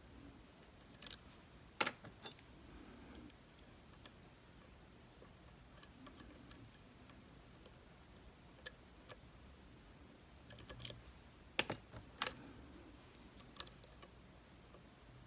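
Small, irregular metallic clicks and taps of lock-picking tools working inside a DOM RS8 high-security cylinder. A few sharper clicks stand out near the start and again near the end.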